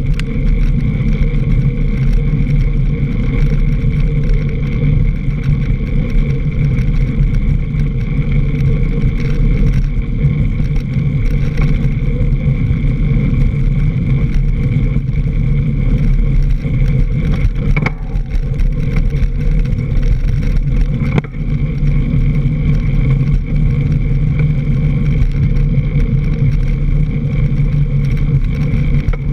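Mountain bike's front tyre rolling fast over a leaf-covered dirt trail, a loud steady rumble and hum picked up close by a fork-mounted camera. Two sharp knocks from bumps come about three seconds apart, around two-thirds of the way through.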